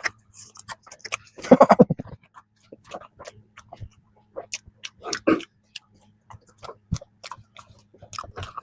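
Close-miked chewing of soft peanut cream bread: many wet mouth clicks and smacks, with a brief hummed 'mmm' about a second and a half in.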